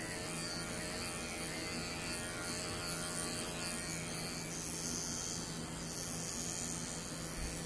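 Electric pet grooming clippers with a guard comb attached, running with a steady hum as they are worked over a small dog's head.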